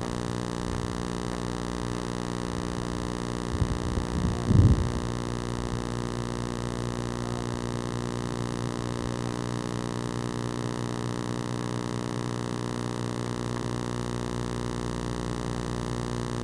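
Steady electrical hum made of several even tones, with a short burst of low thumps and rumble about four seconds in.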